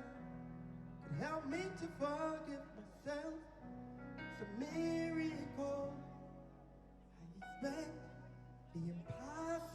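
Live gospel music: a voice sings drawn-out phrases over sustained keyboard chords with guitar, the phrases coming and going every second or two.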